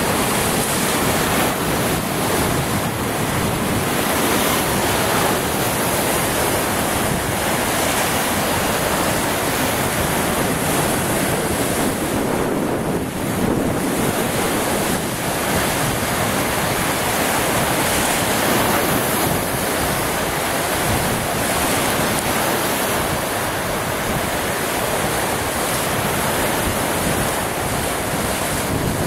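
Lake Superior waves breaking and splashing over a rocky shoreline, a steady rush of surf. Strong wind buffets the microphone throughout.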